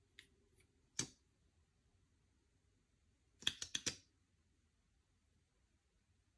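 Slime being pressed and worked, giving off sharp little popping clicks as air pockets burst: one about a second in, then a quick run of about five together near the middle.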